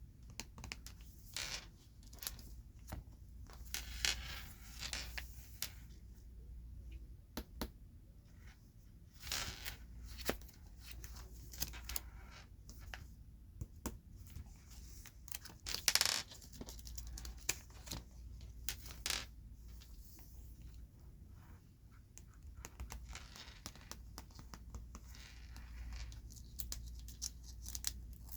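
Hands handling oversized Pokémon cards close to the microphone: irregular rustles, scratches and light taps, with a few longer swishing slides.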